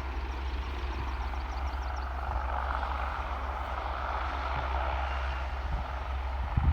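Helicopter running on the ground before moving off: a steady rushing engine and rotor noise over a low rumble.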